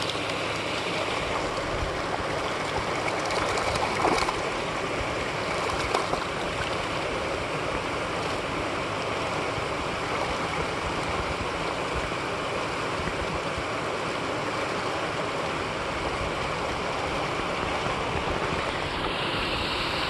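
Shallow water running down a sloped concrete spillway in a steady rush, broken by two brief louder splashes about four and six seconds in.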